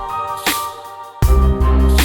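Electronic background music with a steady beat: a snare-like hit about half a second in, and a heavy bass line coming in just past a second in.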